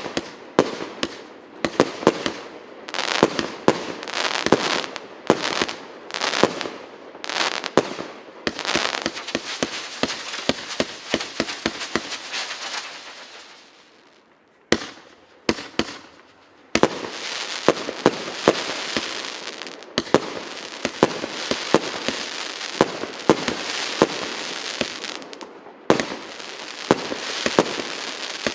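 A 190-shot consumer firework cake of 0.8-inch and 1.25-inch tubes firing in rapid succession: sharp launch pops and bursts over a dense, continuous hiss. The firing thins to almost nothing about halfway through, then resumes with a single pop and picks up again densely a couple of seconds later.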